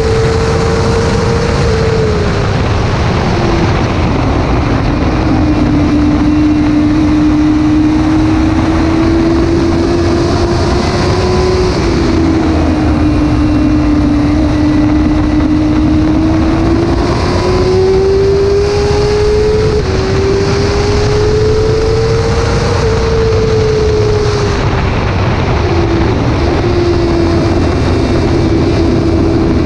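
Suzuki GSX-R 600's inline-four engine running hard on track over a heavy wind rush. Its pitch climbs with the throttle and drops suddenly twice at upshifts, and it falls away at the start and again near the end as the throttle closes.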